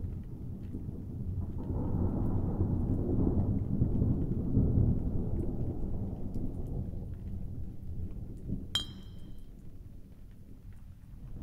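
Low rolling rumble of thunder that swells in the first few seconds and slowly dies away. A single short, bright clink rings out near the end.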